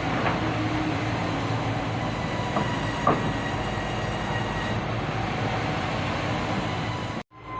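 Sawmill bandsaw machinery running steadily, a dense mechanical din with a faint whine and two sharp knocks a half-second apart. The sound cuts out abruptly near the end.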